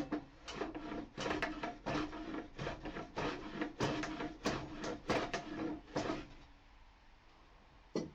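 Hand plane worked over a high spot on a reclaimed pallet-wood worktop in short, quick strokes, roughly two a second for about six seconds, then stopping; one short scrape comes near the end. The blade is dull and not taking off enough on the stubborn side.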